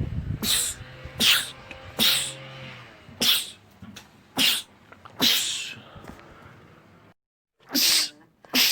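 A man sneezing in rapid succession, about eight sharp sneezes roughly a second apart, with a brief dead-silent break about seven seconds in before the last two.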